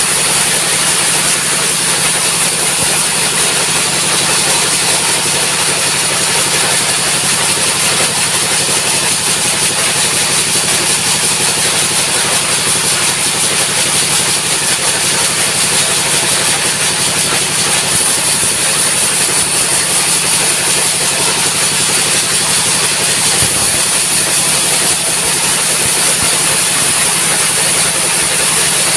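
Sawmill engine running steadily at a constant speed, with a steady high hiss over it.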